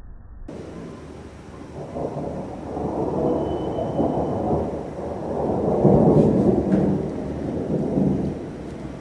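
Rolling thunder: a deep rumble that begins about half a second in, builds, is loudest about six seconds in and dies away near the end.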